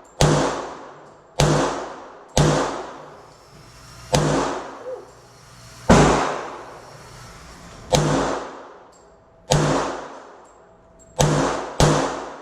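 Gunshots fired one at a time at an uneven pace, about nine in all, one to two seconds apart with the last two close together, each followed by a long echoing tail.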